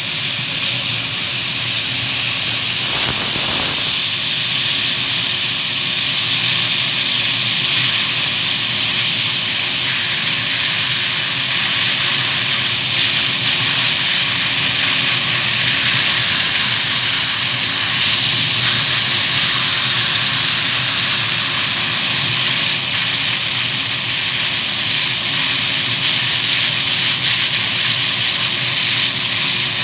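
High-speed dental air-turbine drill cutting out amalgam (mercury) fillings, a high whine that wavers in pitch as the bur bites, over the steady hiss of the high-volume suction and water spray.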